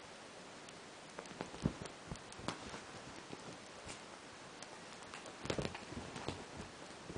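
A cat wrestling, rolling and kicking with a small stuffed toy on a bedspread: scattered soft thumps, clicks and rustles of bedding, with the loudest flurry about five and a half seconds in, over a steady hiss.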